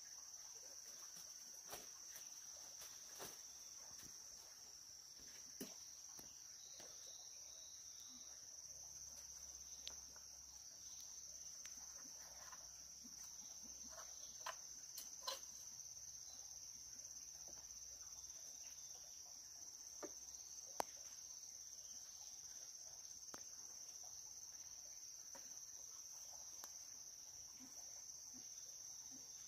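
Steady high-pitched drone of an insect chorus, with scattered faint clicks and rustles from the branches and leaves being handled in the tree.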